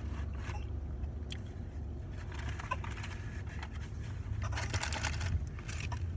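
Small plastic dipping-sauce cup being handled and its lid peeled open, with light clicks and crinkles and a louder spell of rustling about four and a half seconds in, over a steady low rumble in the car cabin.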